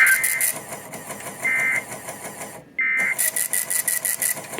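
Emergency Alert System SAME digital data bursts sending the end-of-message code: three short warbling, modem-like squawks about a second and a half apart, marking the end of the warning broadcast. Under them runs a faint, rapid high-pitched pulsing.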